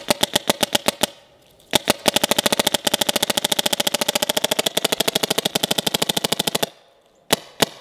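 Planet Eclipse Etha 2 paintball marker firing rapid strings of shots, about a dozen a second. There is a short break about a second in, a lone shot, a long string, and another break near the end before it fires again. The marker is iced over after having water poured through it, yet it keeps cycling with no bolt stick. It sounds significantly louder, which the owner puts down to ice filling the barrel porting or to running low on air.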